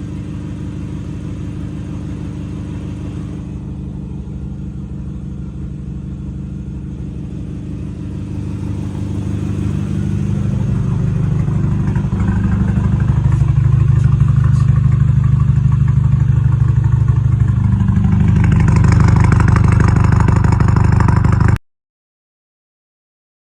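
Audi A4 B6's engine running steadily, growing louder and shifting up in pitch about eight to thirteen seconds in, then holding until the sound cuts off suddenly near the end.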